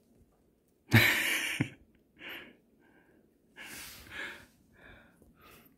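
Breathing: one loud breathy exhale about a second in, then several shorter, softer breaths.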